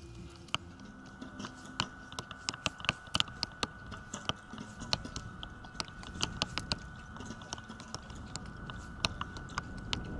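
A run of sharp, irregular clicks and taps, several a second at their busiest in the first half, over a faint steady high tone.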